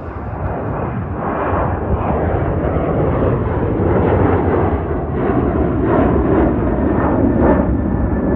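Jet engines of a Southwest Airlines Boeing 737 at takeoff thrust as the airliner climbs out: loud jet noise that grows louder over the first two seconds, then holds as a rough, rumbling roar.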